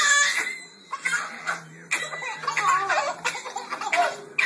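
Two toddlers laughing hysterically in repeated short, high-pitched bursts.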